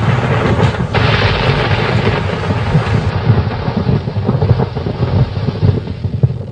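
Loud, continuous rumbling noise, heaviest in the low end, with many small crackling knocks through it: a dramatic sound-effect bed.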